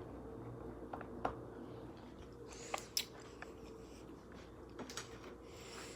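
Faint handling sounds of sour cream being spread over a tortilla wrap with a finger: a few soft clicks and squishes over a low steady hum.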